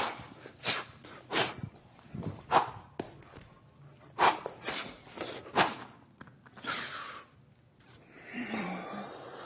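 Hands and feet slapping and landing on the floor during an Animal Flow bodyweight sequence: about a dozen irregular thuds, with a longer sliding swish about seven seconds in.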